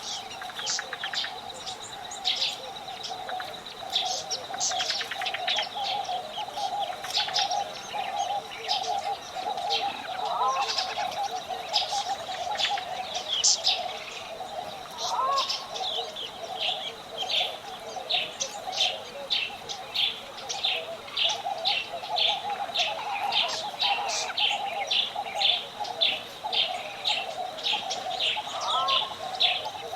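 Bird ambience: many birds chirping in rapid, overlapping calls over a steady high tone and a continuous lower chorus, with a few short rising calls about ten, fifteen and twenty-nine seconds in.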